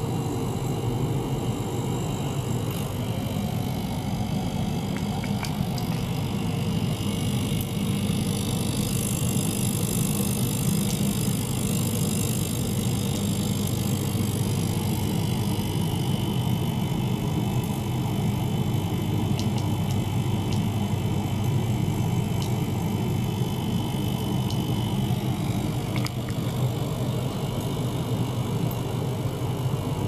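Small ultrasonic cleaner running: a steady low buzzing hum with a hiss over it and a few faint ticks.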